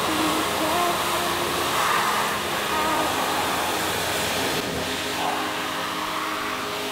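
Pressure washer wand spraying a fan of water against a car's lower door and rocker panel, a steady hiss of spray, with background music playing underneath.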